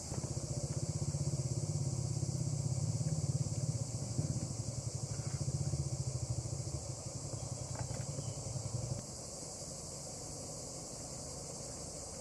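A low, pulsing engine-like rumble that runs for about nine seconds and then cuts off suddenly, over a steady high chirring of insects.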